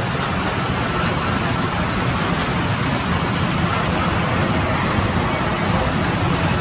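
Large vertical band saws running in a sawmill, a steady loud machine noise with a low hum, as wood is fed through the blade.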